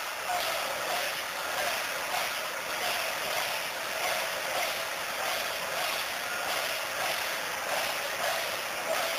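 A large, dense crowd's continuous roar, pulsing faintly throughout.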